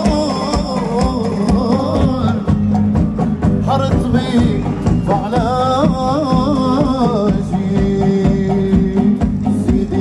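Tunisian folk music: an ornamented, wavering melody line in phrases over steady percussion strokes and a low accompaniment.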